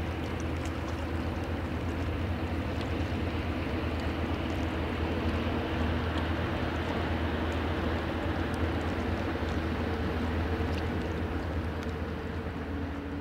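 Diesel engine of a vessel on the Rhine running steadily: a continuous low drone with a deep hum and a few steady tones over a rushing wash.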